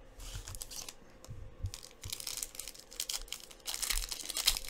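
Foil wrapper of a football trading-card pack crinkling in the hands and then being torn open, in short rustling bursts that are loudest near the end.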